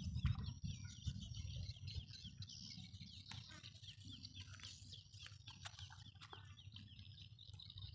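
Faint chirping of birds, many short high calls repeated over and over, over a low fluctuating rumble, with a few faint clicks.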